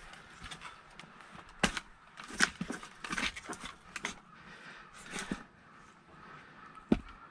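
Irregular wooden knocks and clatter from firewood being split and handled, with sharp knocks about a second and a half in, again near two and a half seconds, and once more near the end.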